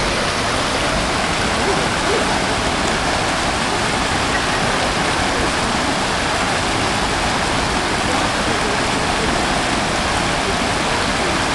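Small river waterfall pouring over rock into a pool: a steady, even rush of falling water.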